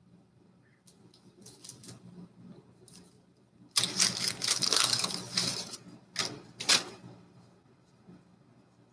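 Baseball card pack wrapper being torn open and crinkled: a loud crackling stretch of about two seconds in the middle, then two sharp rustles. Fainter rustling of cards being handled comes before it.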